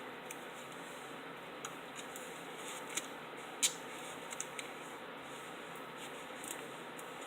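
Scattered small clicks and crinkles of tape and a paper tube being handled, over a steady background hiss, with the sharpest click about three and a half seconds in.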